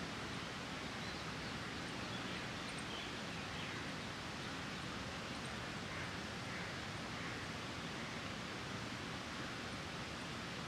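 Steady outdoor background noise, an even hiss, with a few faint, short high chirps scattered through it.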